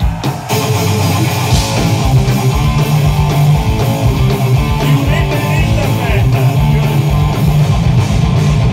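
Live rock band playing at full volume on stage: bass guitar, guitar and drums, the full band coming in just after the start.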